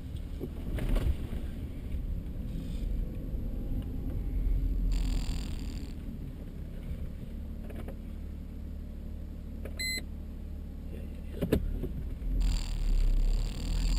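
Inside the cabin of a moving Mercedes C32 AMG: a steady low rumble of its supercharged V6 and road noise, with hissier stretches near the middle and near the end. A short electronic beep comes about ten seconds in, followed by a sharp knock.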